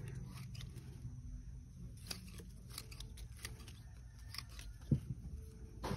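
Scissors snipping small side shoots and leaves off bougainvillea stems: scattered faint clicks, with one sharper snip about five seconds in.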